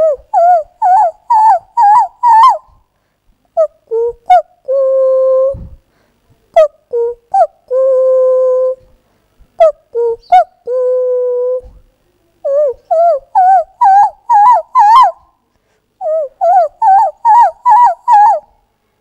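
A woman's vocal imitation of an Asian koel's call: runs of quick rising-and-falling whistle-like notes, about two or three a second, broken near the middle by three long level notes of about a second each.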